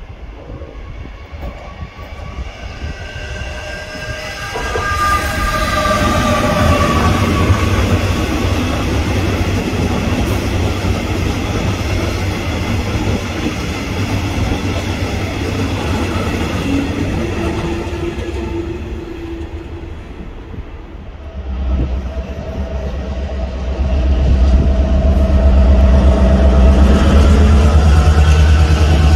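A train passing close by: its rumble builds from about four seconds in and stays loud. About twenty-one seconds in it gives way suddenly to a louder, deeper rumble with a steady hum.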